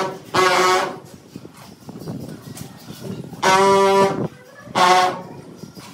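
Handheld tile vibrator buzzing at one steady pitch in short bursts, each under a second, as it is pressed onto a ceramic floor tile to bed it into the adhesive. Two bursts come near the start and two more a little past halfway.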